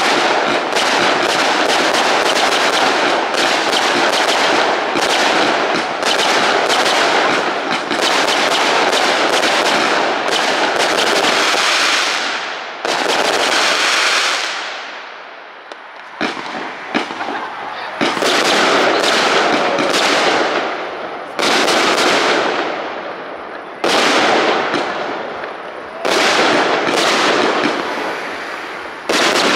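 Fireworks display: a dense, rapid barrage of bangs and crackling that fades briefly about halfway through. It then resumes as a series of separate loud bursts, each trailing off into crackle.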